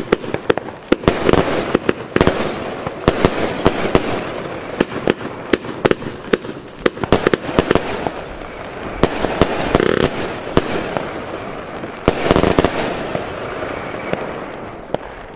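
Albert Feuerwerk 'King of Bling' firework battery (100 shots, 25 mm calibre) firing: a rapid, irregular string of sharp launch reports and bursting shells, with a rushing hiss between them.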